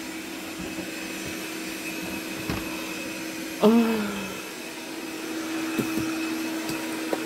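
Robot vacuum cleaner running with a steady, even hum.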